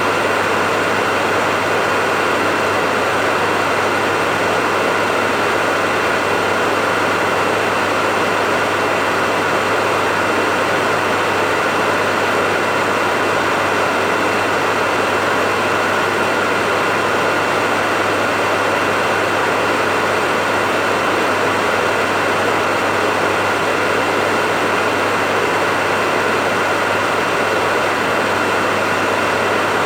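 Hair dryer running steadily: a constant rush of air with a low motor hum and a couple of faint steady whining tones on top, unchanging.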